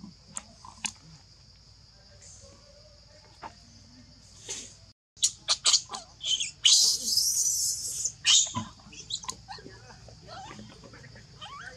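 Infant macaque crying in distress: a run of loud, high-pitched, wavering screams from about 5 to 8.5 seconds in, then fainter whimpers. Leaf litter rustles faintly, and a steady high-pitched drone runs underneath.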